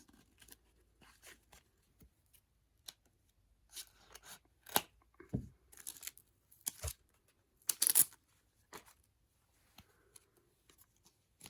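Paper and plastic packaging being handled, torn and cut open close by, in a string of short irregular scrapes and crackles, the loudest a little past the middle.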